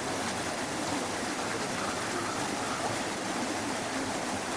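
Steady rush of running water, with faint distant voices underneath.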